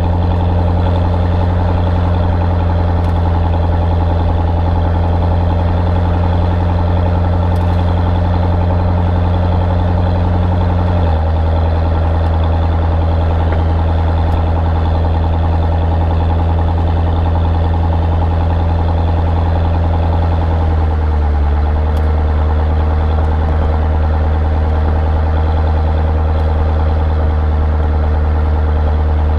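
Chevrolet Corvette C6's V8 idling steadily. Its idle speed steps down slightly twice, about a third of the way through and again about two-thirds of the way through.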